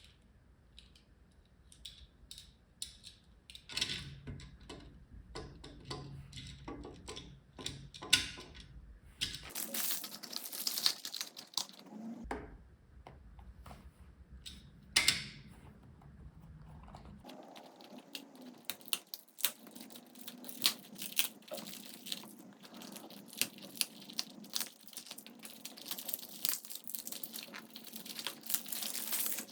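Small toy-car boxes and plastic packaging being opened and handled: rustling, scattered clicks and tearing.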